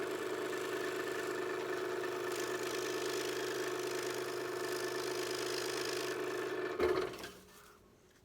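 Scroll saw running steadily, its blade reciprocating while it trims a slot in thin Baltic birch plywood; the saw is switched off about seven seconds in and winds down.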